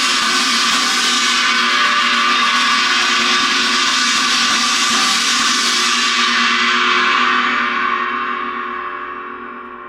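Zildjian 18-inch Oriental China Trash cymbal sounding with a loud, dense, gong-like wash. From about seven seconds in it dies away, the highs fading first.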